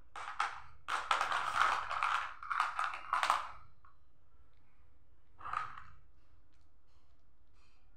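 Small plastic balls clattering against each other and a clear plastic box as a hand rummages through them: a dense rattle for about three seconds, then one shorter rattle about five seconds in.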